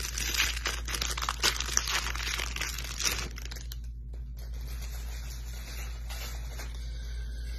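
A trading-card pack's wrapper being torn open and crinkled for about three and a half seconds, then the sound drops to a quiet background.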